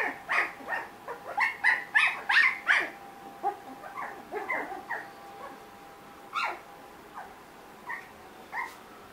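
Three-week-old Australian Labradoodle puppies yipping in a quick run of short, high calls, about three a second, for the first three seconds, then fainter, scattered yips and whimpers.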